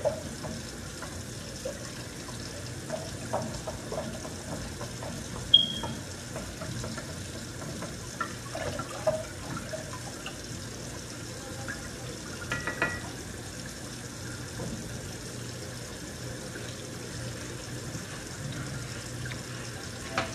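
A long spoon stirring a drink in a glass container: soft swishing of liquid with scattered light clinks against the glass, and one sharper ringing clink about five and a half seconds in.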